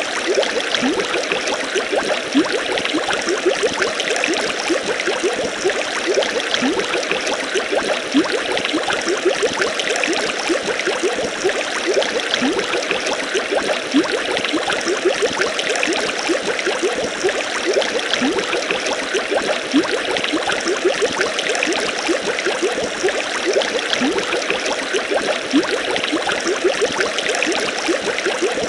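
Steady rush of running water, bubbling and splashing without a break.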